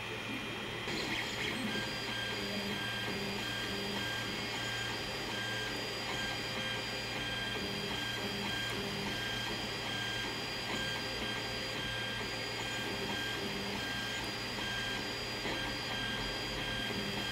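Creality Ender-3 3D printer printing on its older V1.1.3 mainboard: the stepper motors whine in thin high tones that break off and resume with each move, over the steady noise of the cooling fans. The whine sets in about a second in; before that there is only the fan noise of the silent-board segment.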